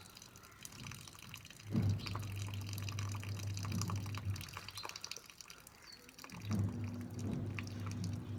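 Warm salt water from a neti pot running out of a nostril and dripping and splashing steadily during a jal neti nasal rinse. A low hum comes and goes in stretches of two to three seconds, starting sharply about two seconds in and again near six and a half seconds.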